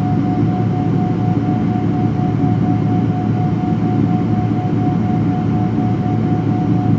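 Steady jet engine noise from a Boeing 777-200LR's GE90 turbofans: a deep, even rumble with a single steady tone running through it.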